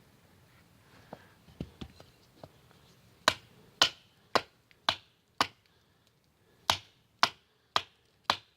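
A series of sharp knocks, evenly spaced about two a second: a few faint ones, then a run of five loud knocks, a short pause, and four more.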